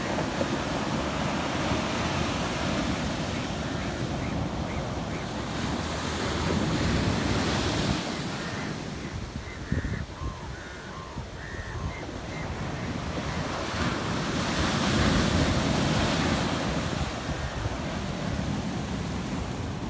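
Surf breaking and washing up a sandy beach, the rush of water swelling loudest about seven and fifteen seconds in, with wind on the microphone. A few faint short chirps near the middle.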